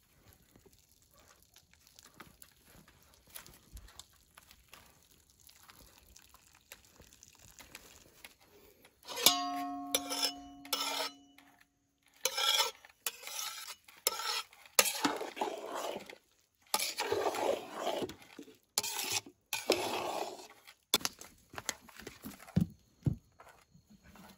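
A metal cooking pot struck once about nine seconds in, ringing for a couple of seconds. Then a metal spoon scrapes and clanks repeatedly against a steel pot of cooked rice.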